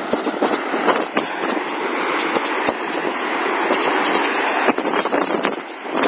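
Waterfall: falling water rushing steadily and loudly, with a few short knocks over it and a brief dip in level near the end.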